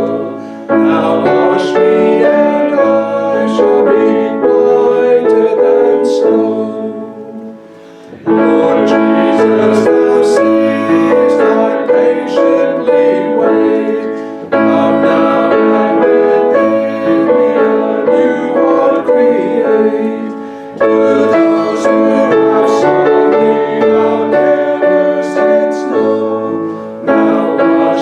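A hymn played on piano, in held chords and phrases about six seconds long, each ending in a short break.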